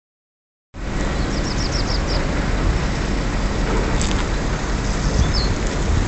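Steady outdoor rumble and hiss that starts abruptly, with a small bird chirping a quick run of about six short high notes about a second in and one more note near the end.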